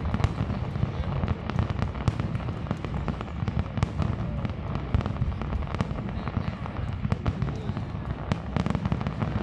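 Aerial firework shells bursting in rapid succession: a dense run of sharp bangs and crackles over a continuous low rumble.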